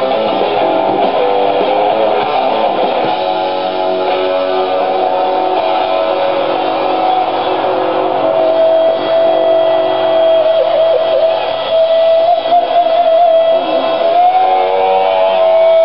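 Live rock music, led by electric guitar over the band, with one long held, wavering note from about eight seconds in. The sound is thin and has no top end, like a concert stream played back through a screen's speakers.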